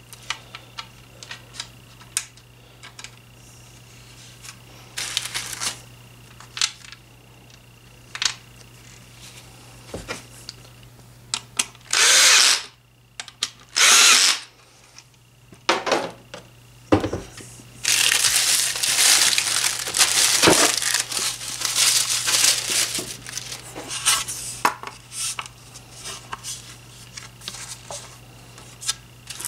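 Power drill driving small screws that fasten the ceiling fan's blade irons to the blades. There are two short runs about twelve and fourteen seconds in, each opening with a rising whine, then a longer uneven stretch of several seconds, with handling clicks and taps between.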